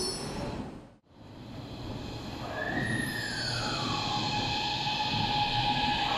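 Beijing Subway BDK03 train's VVVF traction inverter (CRRC Times IGBT, TGN53D.JP1) whining over the rumble of the train, with a sudden drop out to silence about a second in. The whine then returns, gliding down in pitch over about a second and a half before settling into a steady tone.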